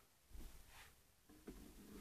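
Near silence, with faint knocks and a click from handling things close by.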